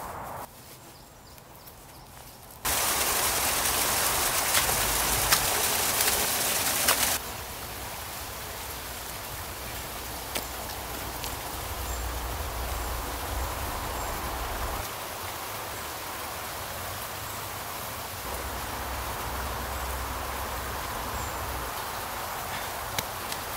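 Bare hands scraping and digging into soil and wet clay, with a few sharp knocks over a steady outdoor hiss. About three seconds in, a much louder even hiss begins, lasts about four seconds and cuts off suddenly.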